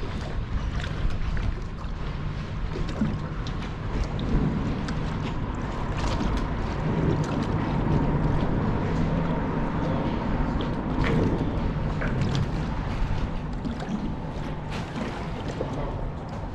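Wind buffeting the microphone and choppy water slapping against a small fishing boat's hull, with scattered short slaps and a faint steady whine.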